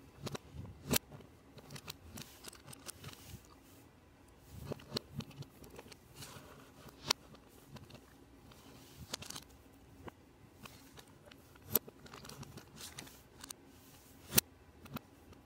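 Plastic Lego Technic pieces being handled and pressed together, with light rattling and scraping and a few sharp clicks as parts snap into place.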